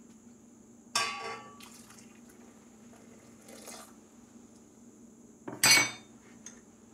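A glass measuring cup clinking against a stainless steel stand-mixer bowl with a short ring about a second in, a soft pour of milk into the bowl, then a louder clink near the end as the cup is set down.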